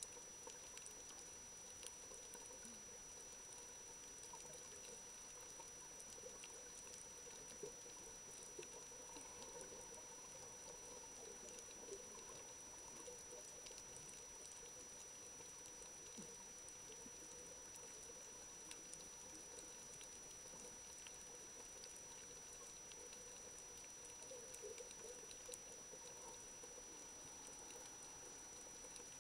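Faint underwater reef crackle: a steady scatter of tiny clicks and pops, the sound typical of snapping shrimp, heard through the camera underwater, with a thin steady high tone beneath it.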